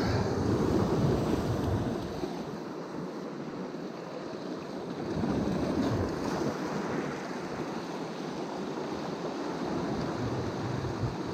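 Sea waves washing on the shore, surging louder twice, with wind on the microphone.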